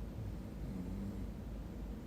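Steady low rumble and hiss of room background noise, with a faint low hum from a little under a second in to just past a second.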